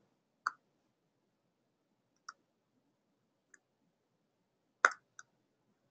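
Five short, sharp clicks at a computer, spaced irregularly. The loudest comes near the end, followed closely by a smaller one.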